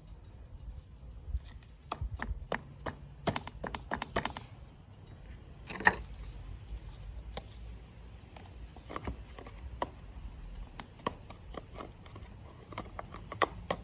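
Hand tools and metal parts being handled during a lawn mower spark plug change: irregular light clicks and knocks, with one sharper click about six seconds in.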